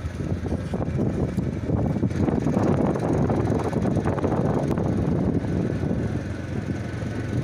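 Steady low rumbling noise with no distinct tones, flickering unevenly throughout.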